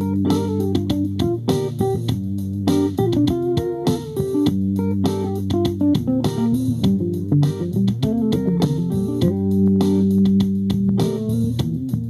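Funk music: bass guitar and guitar playing over a steady beat of sharp percussive hits.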